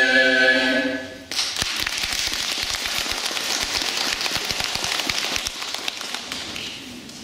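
A children's choir holds a final sung chord that cuts off about a second in, then the audience applauds, the clapping dying away near the end.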